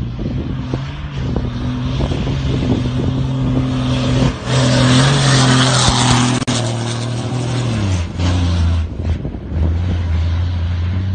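Kamaz-master rally truck's diesel engine running hard as the truck passes close by on sand, with a loud rush of tyre and sand noise about halfway through. The engine note then drops in pitch as the truck pulls away.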